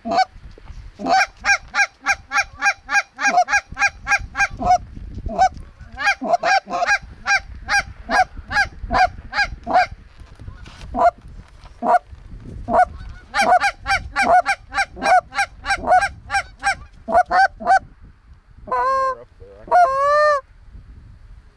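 Canada goose honks in fast, regular runs of about three to four a second, with short breaks between runs. Near the end come a few longer, wavering notes.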